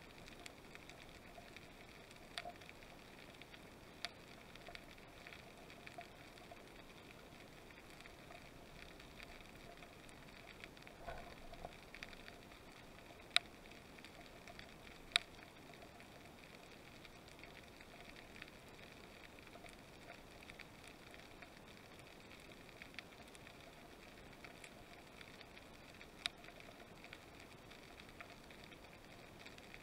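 Faint underwater ambience picked up through an action camera's waterproof housing: a steady low hiss with scattered sharp clicks, a handful of them clearly louder.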